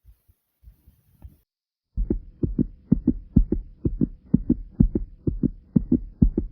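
Fast heartbeat, racing after exercise: quick double 'lub-dub' thumps at about two beats a second, faint at first and suddenly loud from about two seconds in. A faint steady hum runs under the beats.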